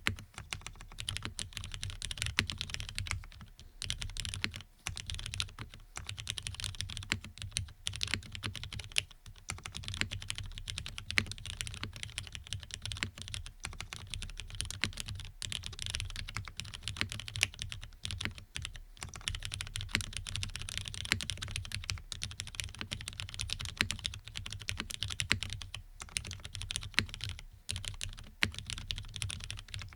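Fast continuous typing on a custom mechanical keyboard with lubed Cherry MX Black linear switches on an FR4 half plate: a rapid stream of key clacks with a deep low thud under each stroke, broken by a few brief pauses.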